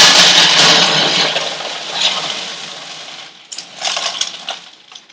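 Grow-bed media pebbles poured from a bag into a plastic grow bed, a dense clattering pour that tails off over about three seconds. It is followed by a few shorter shakes of the bag near the end.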